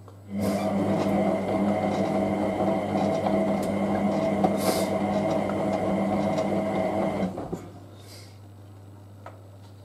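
Hotpoint 9530W washing machine's drum motor turning the drum through a wash tumble of wet towels during the hot main wash: a steady motor whine that starts just after the beginning, runs about seven seconds and stops.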